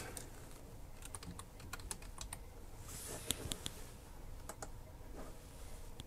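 Typing on a computer keyboard: faint, irregular key clicks, with a quicker run of keystrokes about three seconds in.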